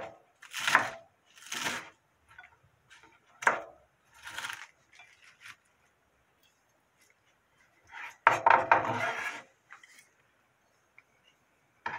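Kitchen knife cutting iceberg lettuce on a wooden cutting board: a few separate crisp strokes, then a busier run of cutting and scraping about eight seconds in.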